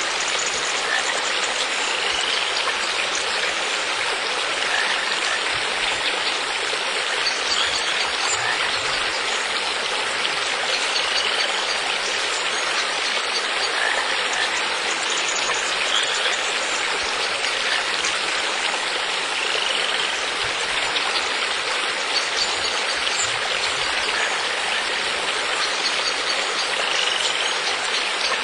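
Steady flowing water, like a stream or fountain, with faint short rising chirps every few seconds.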